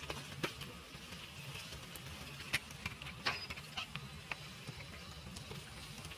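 Outdoor ambience: a low steady hum with scattered light clicks and rustles.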